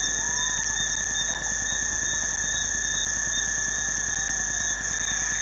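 Night insect chorus: several steady high-pitched trills at different pitches, one of them pulsing a few times a second, over a low hiss.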